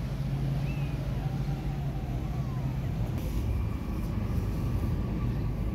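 Steady low mechanical rumble with a low hum, and a couple of faint short high chirps in the first two and a half seconds.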